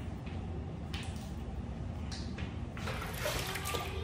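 Water from a tap running and splashing, in short spurts at first and more steadily near the end, over a low steady rumble.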